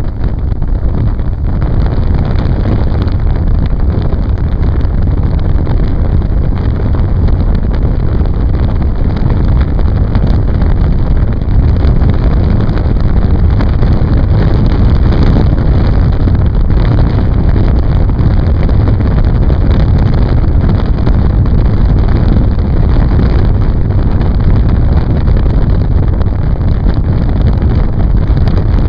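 Loud, steady wind buffeting on the microphone of a motorboat running at high speed, about 38 mph, over the steady running of its motor.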